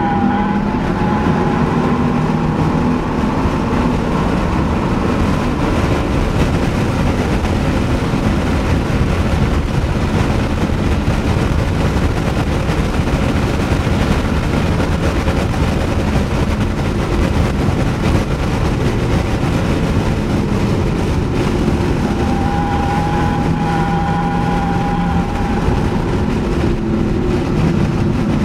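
Audi S4 driven hard on a race track, heard from inside its cabin: a steady, dense mix of engine and road noise. A high steady tone sits over it in the first second and comes back in the last few seconds.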